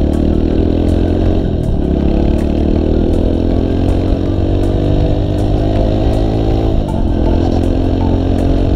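Motorcycle engine heard from the rider's seat, pulling up through the gears. Its pitch climbs steadily, dips sharply twice (about two and seven seconds in) as it shifts up, and climbs again after each shift.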